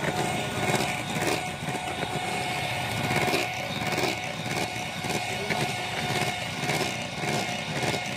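Electric mixer whipping pancake batter, its motor running with a steady, even whine over a rough rumble.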